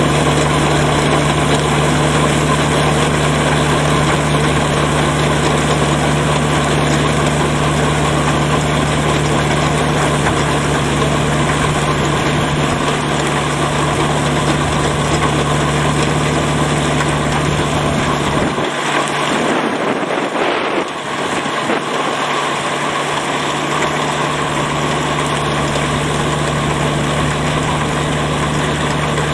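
Shibaura tractor's diesel engine running steadily under load, driving a rotary levee builder whose spinning drum churns and throws wet mud to form a paddy bund. The deep engine note drops away briefly about two-thirds of the way through, then returns.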